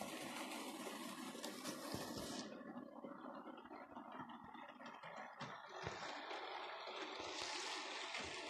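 Model railway trains running on the layout's track, a steady whirring hiss of small motors and wheels on rail. The hiss thins about two and a half seconds in and swells again near the end as a model diesel locomotive hauling tank wagons passes close.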